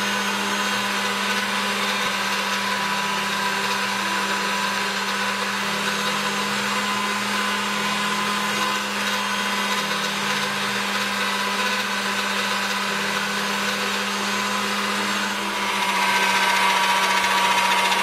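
Motor of a Marcato Atlas Motor electric pasta machine running steadily, its rollers turning as a sheet of dough is fed through to roll it thin. The drone gets louder about fifteen seconds in.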